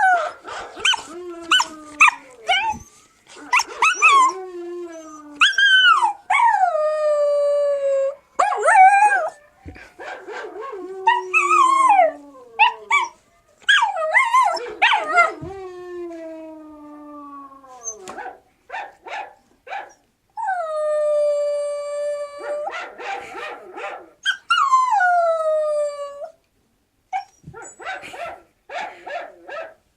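Siberian husky puppy howling: a string of high, wavering howls broken by short yips, most calls sliding down in pitch, with two longer held howls about two-thirds of the way through.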